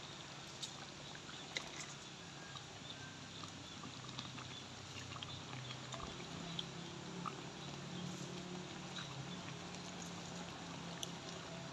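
Quiet outdoor background with faint scattered clicks of a serving spoon against a metal pot and a glass bowl as cooked green eggplant stew is ladled out. A faint low hum comes in about four seconds in.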